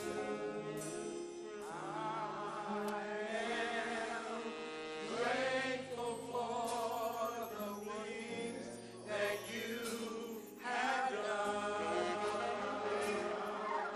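Church choir singing a gospel song over band accompaniment with held low notes, in phrases separated by short breaks.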